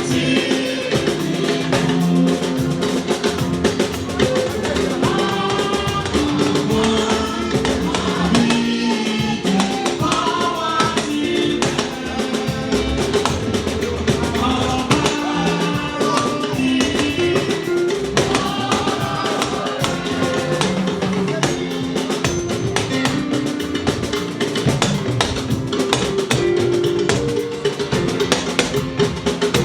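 Church choir singing a Celestial Church of Christ hymn in Yoruba, with a steady drum accompaniment.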